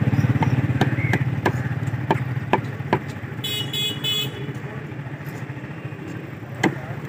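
Meat cleaver chopping chicken on a wooden chopping block, sharp chops about twice a second for the first three seconds and once more near the end, over a motorcycle engine running close by. A vehicle horn toots briefly about three and a half seconds in.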